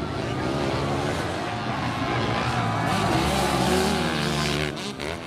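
Motocross bike engines revving up and down as the riders race, their pitch rising and falling; one bike passing close is loudest about three to four seconds in, and the sound drops away shortly before the end.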